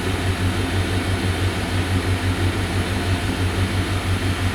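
Chevy 350 (5.7 L) throttle-body V8 idling cold with an even, low pulsing rumble, heard from inside the cab. The engine is running rich and losing coolant into the exhaust, which the owner takes for an intake or head gasket leak.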